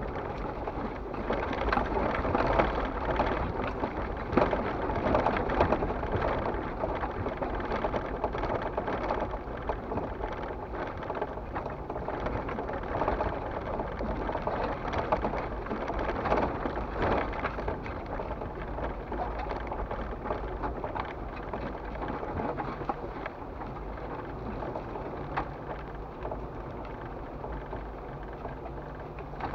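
Jeep driving along a rough dirt trail, heard from inside the cab: a dense crackle of tyres on gravel and dry leaves with small rattles and knocks over a low, steady engine hum.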